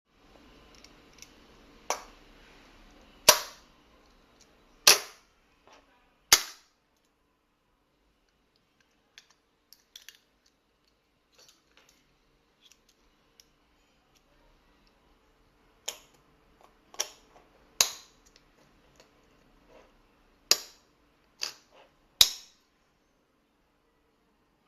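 Sharp clacks of hard plastic security tags knocking against a 20000GS golf-style magnetic EAS tag detacher as they are set on it and released, in two bunches of about four and six, with fainter ticks between.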